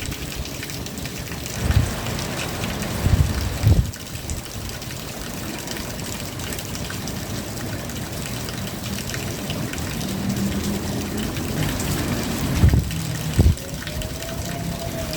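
Steady rain falling, broken by a few short low thuds, with a faint tone that rises and falls near the end.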